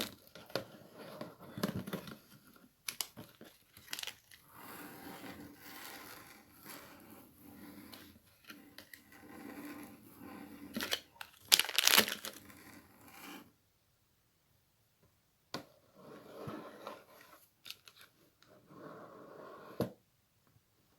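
Close-up rustling and crinkling of a handled material, in irregular scrunches with a cluster of louder, sharper crackles a little past halfway, then a brief pause before the rustling resumes.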